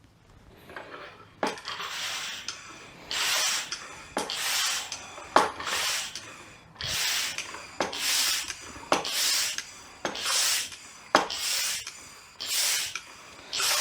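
Hand-pumped vacuum fluid extractor being stroked to draw transmission fluid out through a small hose: a regular hiss with a click at the start of each stroke, about one stroke a second, a dozen or so in all.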